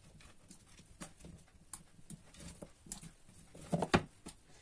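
Raw pumpkin cubes dropped by hand into a pot of hot water: a scatter of small, irregular knocks and splashes, with a louder couple near the end.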